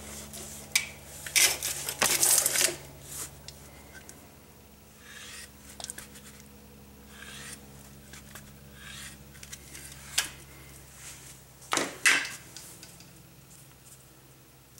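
Hand grease gun being pumped into the grease fitting of a new outer tie rod end, filling its rubber boot: a few loud short strokes near the start and one about twelve seconds in, with lighter clicks and scrapes of the gun's coupler on the fitting between them.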